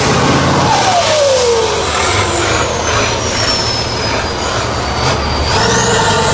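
Off-road 4x4 truck engine running hard. The revs fall away about a second in and climb again near the end, with a high whine falling and then rising along with them.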